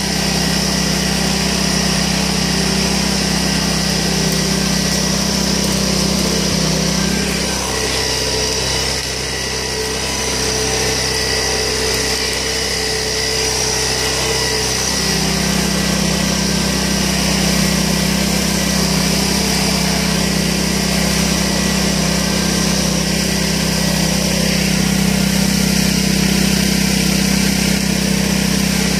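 Small petrol engine of the tow vehicle running steadily while pulling a homemade barrel train through tall grass. Its note drops lower for several seconds in the middle, then comes back up.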